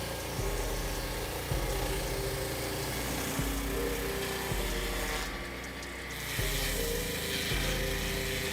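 Background music with a steady bass pattern that changes about once a second and held synth tones, over a steady hiss; the high end briefly drops out around the middle.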